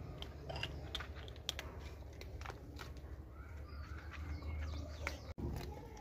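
Kittens crunching dry cat kibble from a shared tray: a rapid, irregular scatter of small crunches and clicks.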